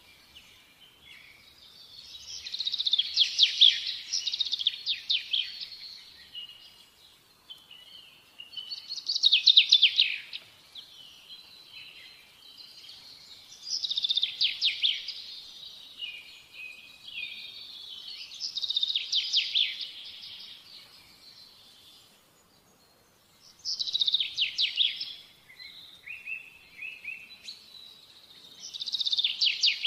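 A songbird singing: about six phrases of rapid high chirps and trills, each lasting one to three seconds, coming roughly every five seconds with quiet gaps between.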